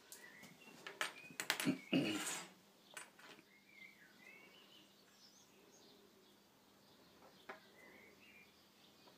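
Sharp clicks and clatter of small metal tools and crocodile clips being picked up and handled on a workbench in the first couple of seconds. Faint bird chirps follow in the background.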